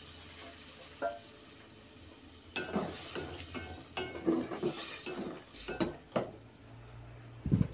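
A spatula stirring soup in an aluminium pot, scraping and clinking against the pot's sides in a run of strokes from about two and a half seconds in to about six seconds. A single light clink comes about a second in, and a dull thump near the end.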